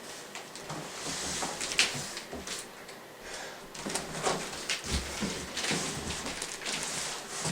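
Cardboard box and packing material rustling and scraping, with scattered small knocks and clicks, as a large keyboard is worked out of its shipping box.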